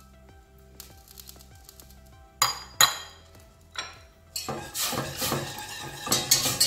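A few sharp metal clinks on a stainless steel pot, then from about four and a half seconds in a wire whisk clattering and scraping rapidly against the pot as the liquid is stirred.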